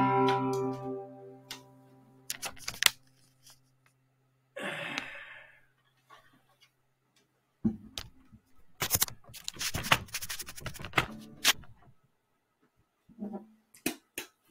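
The last strummed acoustic guitar chord rings out and fades over about a second and a half. Scattered clicks, knocks and rustles of the recording device being handled follow, with a short breathy rustle about five seconds in and the busiest run of knocks between about eight and twelve seconds in.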